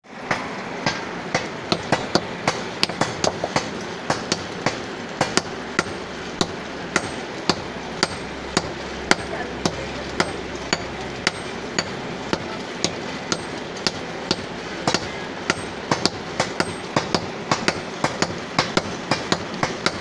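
Hand forging: a sledgehammer strikes red-hot iron on an anvil, sharp ringing blows coming irregularly at about two a second.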